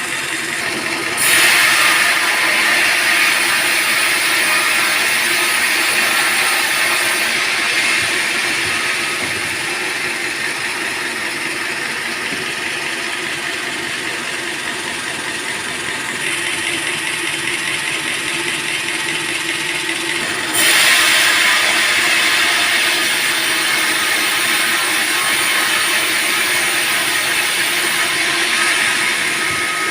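Sawmill band saw running steadily while its blade cuts through a teak log. A louder hissing cutting noise comes in about a second in, eases off partway through, and comes in again about two-thirds of the way through.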